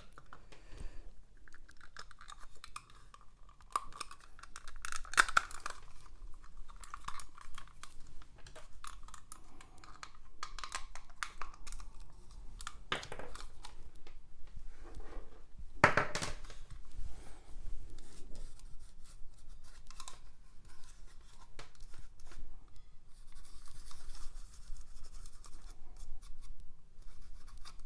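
Scratching and rubbing as the parts of an opened ball mouse are scrubbed clean, broken by occasional sharp clicks and knocks of plastic being handled.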